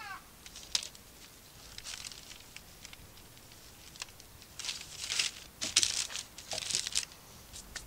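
Hands tearing apart a crisp-crusted mess-tin loaf and shifting it on baking paper: several short bursts of crackling and rustling, the loudest between about five and seven seconds in.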